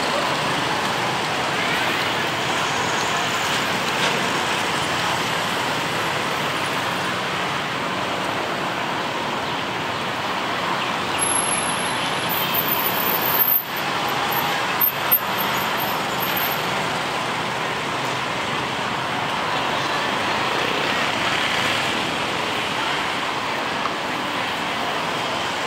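Steady hum of city road traffic, with a couple of small knocks about halfway through.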